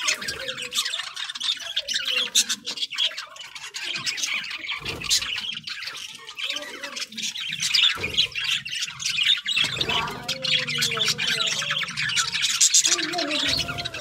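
A flock of budgerigars chattering and squawking together, a dense unbroken stream of rapid high chirps and squawks.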